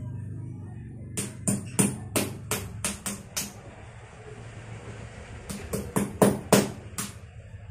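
Claw hammer striking a chisel into a concrete floor, chipping out the slab in two quick runs of sharp metal-on-metal blows, about three a second, with a pause in the middle.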